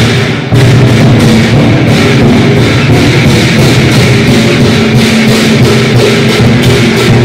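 Chinese lion dance percussion: a large drum beaten in a fast, steady stream with clashing cymbals, played loud.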